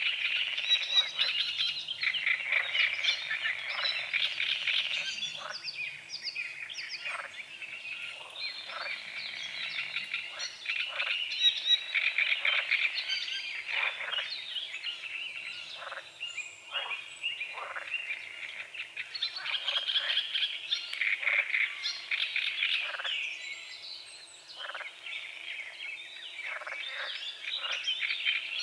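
Frogs croaking in a dense chorus of many overlapping calls, with birds singing and chirping among them.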